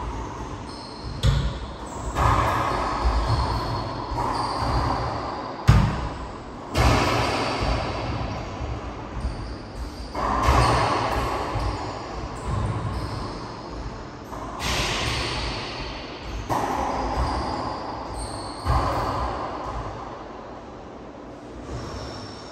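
Racquetball play: the ball cracking sharply off racquets and court walls every few seconds, each hit ringing on in the enclosed court's echo.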